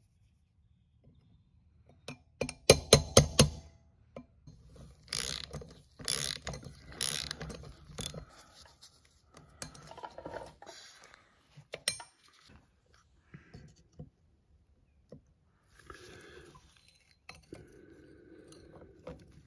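Quick run of sharp, ringing metal taps, about six in a second, as a screwdriver is worked against the bolts and lock tabs of a motorcycle's steel rear sprocket. Then scattered clinks and scraping of tools on the sprocket nuts as they are undone.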